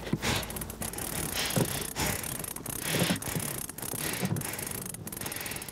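Large conventional fishing reel cranked hard under the heavy load of a hooked fish, a mechanical rasp repeating with the turns of the handle, with a few low knocks.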